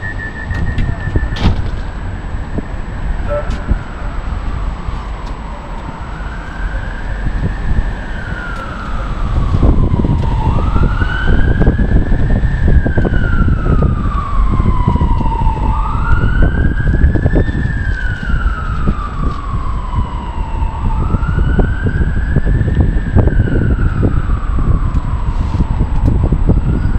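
Emergency vehicle siren wailing, gliding slowly up and then down in pitch about once every five seconds, louder from about ten seconds in, over low traffic rumble. At the very start, rapid high beeps from a Metrolink tram's door warning stop after about a second and a half.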